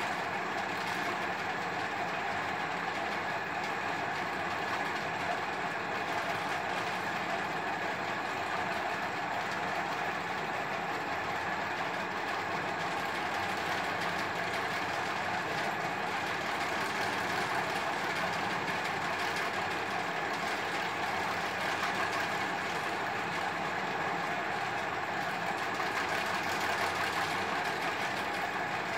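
A steady mechanical hum with an even rushing noise and faint steady tones, without breaks or sudden sounds.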